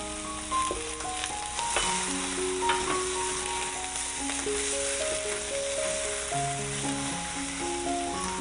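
Jumbo prawns and diced onion sizzling in a stainless steel pan, with a few scrapes and knocks as a wooden spatula turns them. A simple melody of held notes plays over it as background music.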